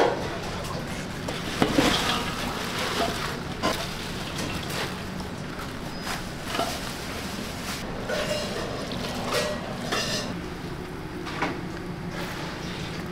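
Metal pots and utensils clinking and knocking now and then during kitchen work, over a steady low hum.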